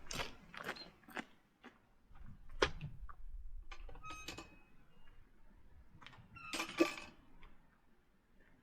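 Faint footsteps crunching on a stony path: a few irregular steps and clicks, with a louder scuff about two and a half seconds in and another near seven seconds.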